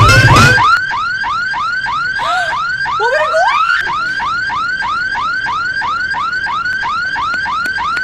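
Roncar anti-theft alarm sounding: a rising chirp repeated about four times a second. Loud music cuts off less than a second in.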